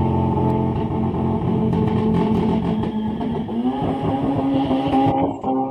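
Car engine held at high revs after a hard rev-up, its pitch steady and then stepping up about three and a half seconds in.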